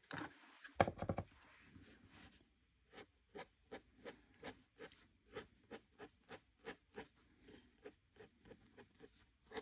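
Faint scratching of an acrylic paint marker's tip on paper in short, repeated strokes, about two a second, with a louder scrape about a second in.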